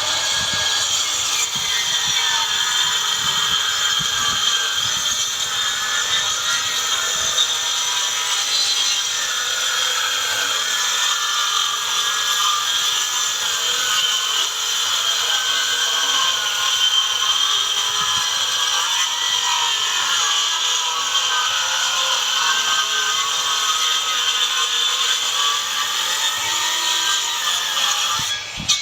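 Handheld electric circular saw running and cutting through wooden boards: a steady high whine whose pitch wavers as the blade works through the wood, stopping abruptly near the end.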